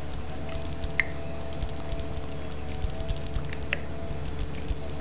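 Olive oil being squeezed from a plastic squeeze bottle: scattered faint clicks and light metallic jingling over a steady low hum.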